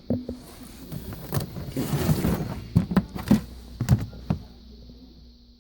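A series of irregular knocks and thumps, with a short rustle about two seconds in.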